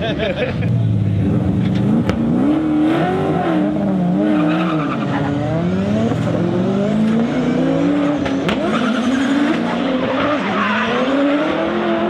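Drift car engine revving up and down over and over, with tyres squealing and skidding.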